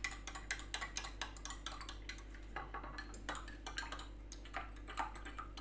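A spoon stirring a milk drink, clinking rapidly against the side of its container: about six clinks a second at first, slowing in the second half.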